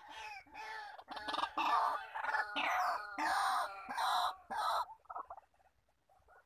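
White-breasted waterhen calling: a loud series of about nine harsh, repeated notes over the first five seconds, trailing off into fainter, softer notes.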